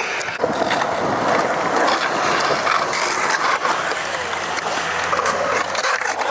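Skateboard wheels rolling over skatepark concrete: a steady, loud rolling rumble broken by a few sharp clacks of the board.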